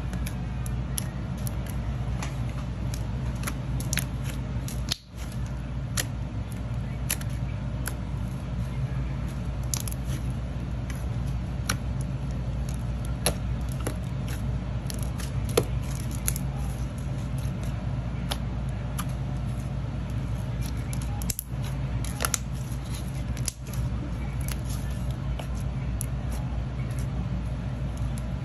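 Pink homemade slime squeezed, poked and stretched by hand, giving many small irregular clicks and pops as air pockets in it burst, over a steady low hum.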